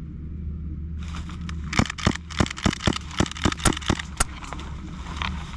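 A quick string of about a dozen sharp airsoft gun shots, roughly five a second, over a steady low engine hum.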